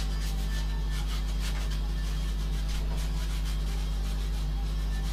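A hand tool rubs on a carved wooden workpiece in short, irregular strokes, a few a second, over a steady low electrical hum that is the loudest thing throughout.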